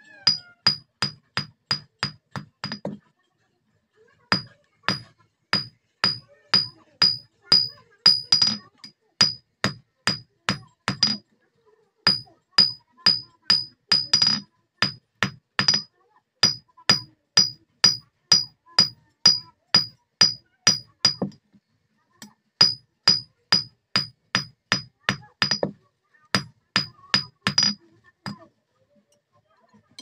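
Hand hammer forging a red-hot steel bar on a steel anvil block, about three blows a second, each with a high metallic ring. The blows come in four runs separated by short pauses.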